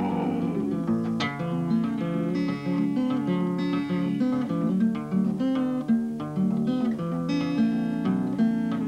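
Acoustic guitar fingerpicked in Piedmont blues style: a steady, repeating bass line under a picked melody. It is an instrumental passage with no singing.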